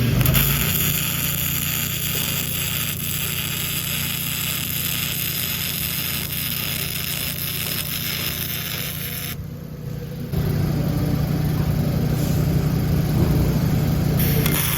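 Miller Trailblazer engine-driven welder's engine running steadily under a constant hiss. The hiss cuts out briefly about nine seconds in, and the engine note then comes back louder.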